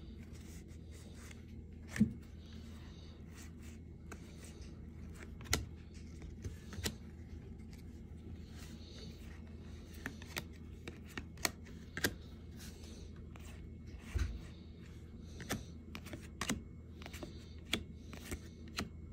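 Baseball cards being thumbed through by hand: card stock sliding and rustling against the stack, with scattered sharp taps and clicks as cards are moved and set down on a wooden desk, over a steady low hum.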